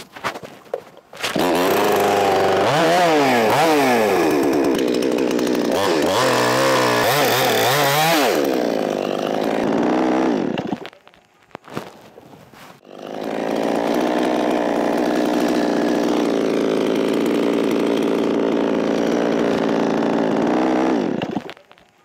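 Petrol chainsaw cutting into a coconut palm trunk at full throttle, its engine speed rising and falling again and again, then winding down about ten seconds in. After a short pause it runs again at a steady high speed for about eight seconds and dies away near the end.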